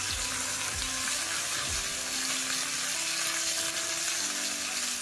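Oxtail pieces sizzling in ghee in a frying pan: a steady hiss of meat browning.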